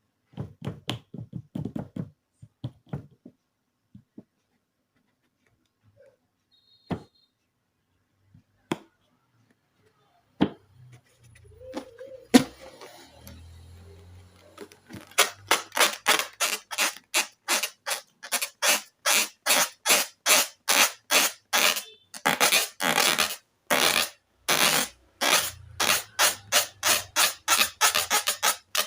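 Slime being squished and worked by hand, making sticky squelching clicks and pops. It is sparse at first, then turns into a fast even run of squelches, about three a second, from about halfway through.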